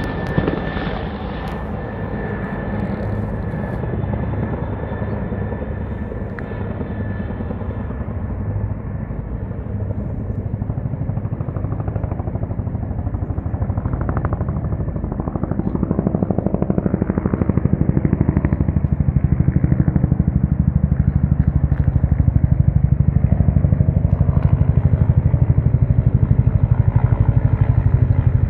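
Agusta-Bell AB 212 military helicopters, the fast steady chop of their two-bladed main rotors, with a thin high whine over the first several seconds. The chopping grows louder through the second half as the helicopters come closer.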